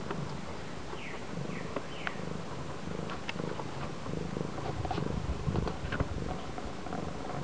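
Domestic cat purring steadily close up.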